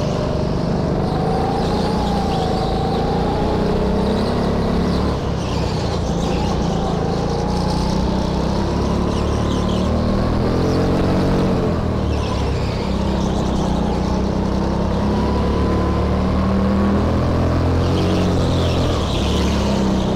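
Go-kart engine running hard through a lap, its pitch dropping as it slows for corners and climbing again on the straights.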